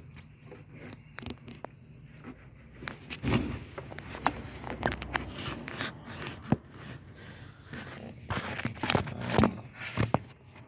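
Irregular clicks, knocks and scrapes of hands handling and prodding parts in a car's engine bay, over a faint steady low hum.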